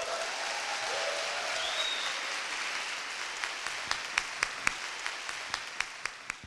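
Audience applauding at the end of a speech. The applause thins out to a few separate claps and fades out near the end.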